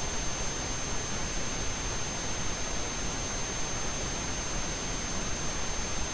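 Steady hiss of recording static, with a thin, steady high-pitched whine running through it.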